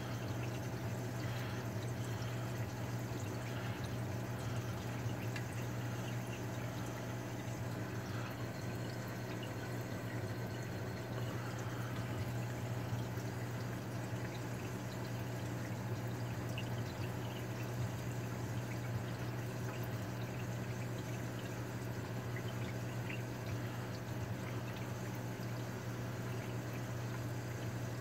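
Saltwater aquarium sump running with its protein skimmer on: steady trickling and splashing water over a constant low hum.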